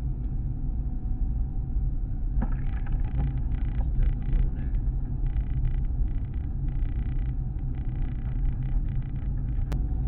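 Car driving on a snow-covered road, heard from inside the cabin: a steady low rumble of engine and tyres, with patchy hiss over it from about two seconds in. A short click near the end.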